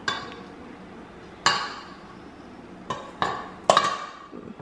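A wooden spoon stirring sticky bread dough in a stainless steel mixing bowl, knocking against the bowl's metal side with short ringing clanks: once at the start, once about a second and a half in, and several times near the end.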